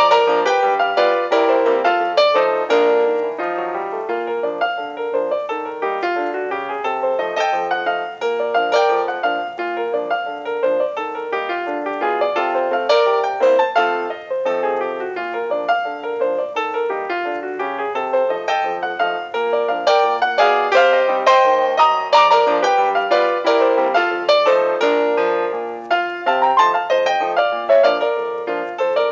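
Ragtime piano music with a bouncy, steady beat.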